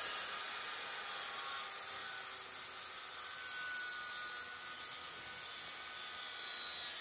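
Circular saw running and cutting through a pressure-treated 2x4, a steady whining saw noise.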